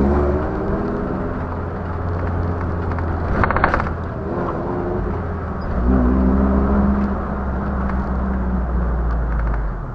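Toyota 4Runner's engine and road noise heard inside the cabin through a dashcam's built-in microphone during driving. The engine pitch rises as the truck accelerates near the start and again about six seconds in, with a brief rattle about three and a half seconds in.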